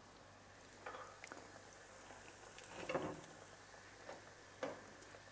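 Small doughnuts frying in a pan of oil with a faint sizzle, broken by a few soft clicks and a louder knock about three seconds in as a fork works in the pan to lift out a doughnut.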